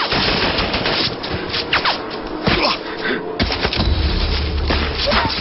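Action-film soundtrack: a dense rush of noise with thuds and sharp hits, a deep boom at about three and a half seconds, and music underneath.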